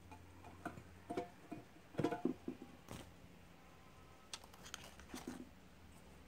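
LG M26 18650 lithium-ion cells being handled: a string of light clicks and knocks, some with a brief metallic ring, as a cell is pulled from a battery tester's clamp and another is lifted from a box of packed cells. The taps are busiest about two seconds in, with a second cluster a couple of seconds later.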